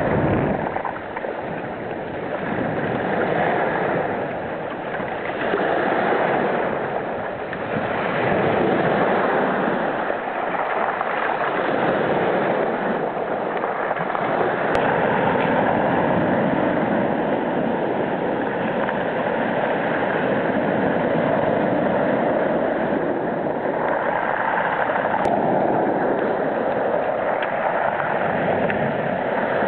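Small sea waves washing in over beach stones: a continuous rush and gurgle of water among the stones that swells and eases, more evenly after the first ten seconds or so.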